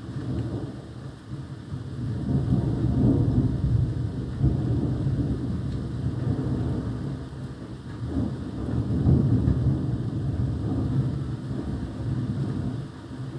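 Thunder rumbling in long rolls, swelling about two seconds in and again around nine seconds, then easing near the end, over steady rain.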